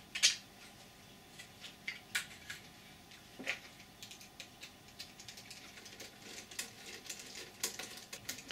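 Scattered light clicks and taps of 3D-printed plastic replica gun parts being fitted together and handled, with a small hand tool against the plastic. The loudest click comes just after the start.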